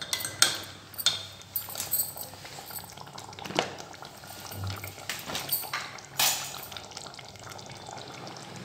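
White plastic ladle stirring thick chicken korma gravy in an aluminium pot, with scrapes and knocks against the pot and the gravy cooking. The knocks stop after about six and a half seconds, leaving a steadier, quieter sound.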